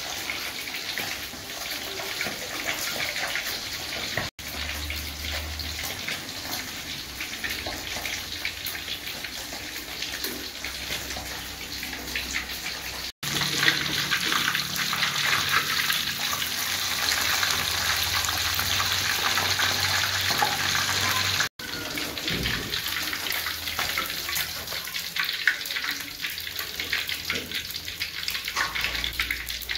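Fish frying in a wok of hot oil: a steady crackling sizzle, broken by a few abrupt cuts and loudest in the middle stretch.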